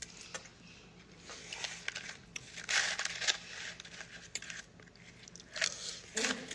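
Plastic spoon scooping and scraping shaved ice in a plastic cup, with crunching and chewing of the ice; scattered crunches and clicks, loudest about three seconds in.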